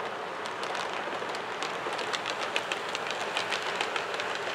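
Model railway wagons clicking irregularly as their wheels run over the track joints, over a steady running hiss; the locomotive's own sound is switched off and its motor is not heard.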